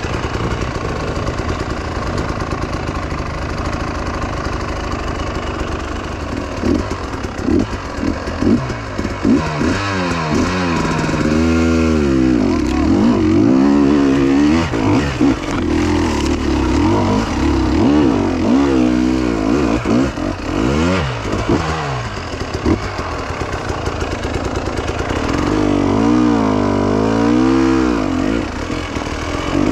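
Motorcycle engine running under way, its revs rising and falling again and again with the throttle, in quick swings around the middle and again near the end.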